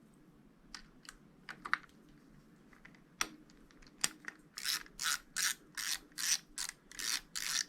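Ratcheting hand tool driving in the screws of a motorcycle handlebar grip clamp: a few scattered clicks, then from about four and a half seconds a quick run of about eight ratchet strokes.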